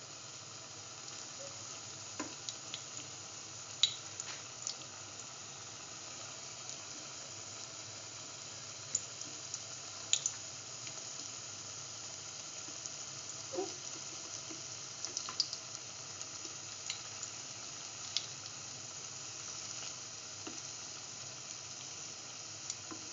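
Split chickpea fritters shallow-frying in hot oil in a pan: a steady sizzle with scattered sharp pops and crackles.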